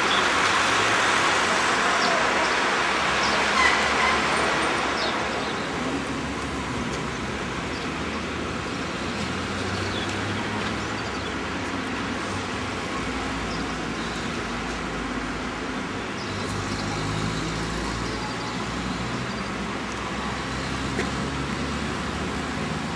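Street traffic: a steady wash of cars driving past, with low engine hum, louder for the first few seconds.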